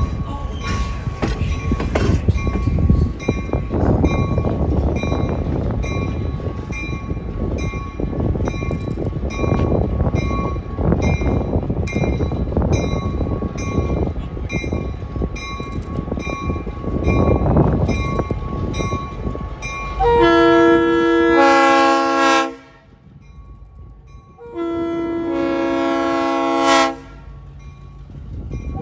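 A train rolling past with a heavy steady rumble, then the locomotive's air horn sounding two long blasts a couple of seconds apart, each a chord of several held notes. This is the opening of the long-long-short-long grade-crossing signal.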